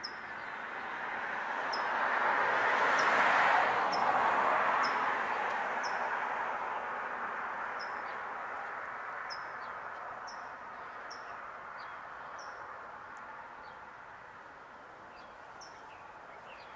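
A vehicle passing on a nearby road, its noise swelling to a peak about three seconds in and then slowly fading. Over it a small bird gives short high chirps about once a second.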